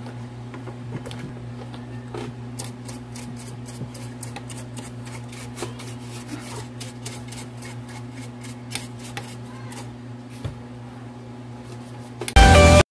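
Rag wiping and rubbing the metal case of a mini amplifier in a run of quick scratchy strokes, about three a second, over a steady low hum. A short loud burst cuts in right at the end.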